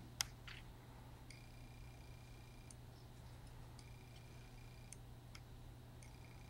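Near silence: a steady low electrical hum with faint, regularly spaced ticks, and one sharp click just after the start.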